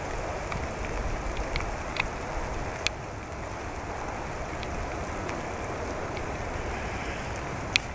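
Steady rain falling, an even hiss with a few sharp, louder drop hits close by.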